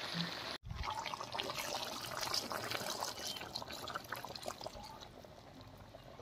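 Water poured from a steel bowl into a karai of cooking chicken curry, splashing and crackling into the hot gravy. It tapers off over the last couple of seconds.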